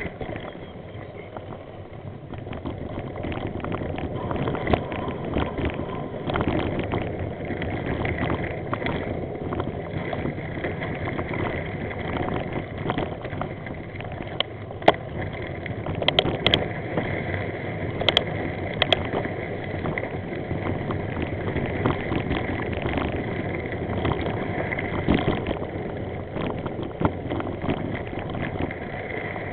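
Vehicle travelling along a bumpy dirt track, heard from a camera mounted on it: a steady rumbling noise with wind on the microphone, picking up after about two seconds, broken by frequent knocks and rattles over the bumps and a few sharp clicks about halfway through.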